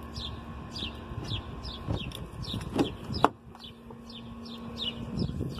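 Birds chirping repeatedly outdoors, a few short falling chirps each second, with a sharp click a little after three seconds in as the SUV's door is opened.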